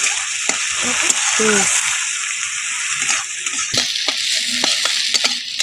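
Sliced onions sizzling steadily as they fry in hot oil in a steel kadai, browning for a curry. A few short knocks and scrapes of a metal spatula against the pan are heard.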